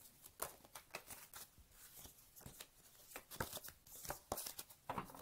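A tarot deck being shuffled by hand: faint, irregular soft clicks and rustles of the cards, the shuffle kept going until a card jumps out of the deck.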